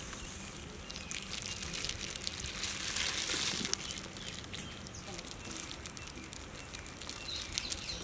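Quiet outdoor background: a steady hiss with scattered faint ticks and a few faint distant bird calls.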